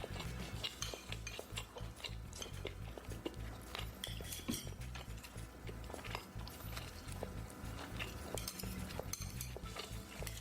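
Eating utensils clinking and scraping against bowls and dishes, with many small irregular clicks.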